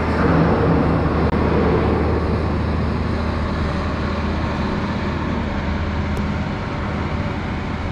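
Steady low mechanical drone with a constant rushing noise: the general din of shipyard machinery, unchanging throughout.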